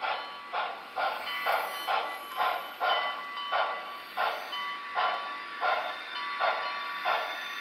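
Broadway Limited Reading T1 4-8-4 model steam locomotive's onboard sound system playing slow, evenly spaced exhaust chuffs, about two a second, as the engine pulls away. A thin steady tone comes and goes behind the chuffs.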